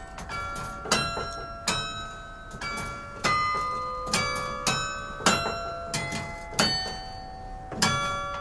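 Carillon bells played from the baton keyboard: a slow hymn tune of single struck notes, about one every two-thirds of a second, each bell ringing on under the next.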